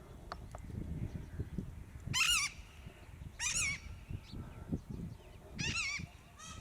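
Peacock (Indian peafowl) calling: three loud, short, wavering honk-like calls about a second or two apart, with a fainter fourth near the end.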